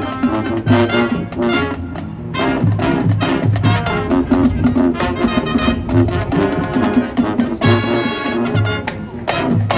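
School marching band playing: brass horns over drumline percussion, with a steady beat.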